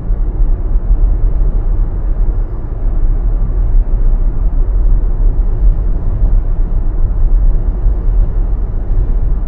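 Steady low road rumble and tyre noise heard inside the cabin of a Tesla electric car cruising at moderate speed, with no engine sound.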